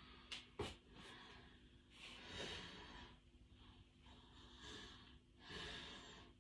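Quiet breathing of a person exerting themselves during a set of calf raises: three drawn-out breaths, the first and longest about two seconds in. Two short clicks come about half a second in.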